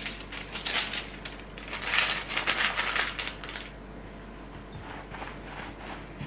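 Hands working bread dough for bagels on a wooden tabletop: a run of quick soft slaps, rubs and scrapes, busiest from about two to three and a half seconds in, then quieter rubbing as the dough is rolled into a log.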